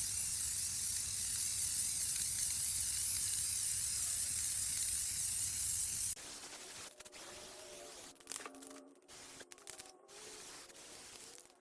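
Paint being sprayed: a steady hiss that lasts about six seconds and then cuts off sharply. Fainter scattered sounds follow.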